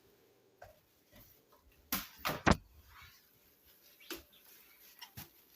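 Scattered short knocks and rustles, loudest in a quick cluster of three about two seconds in, with fainter ones before and after.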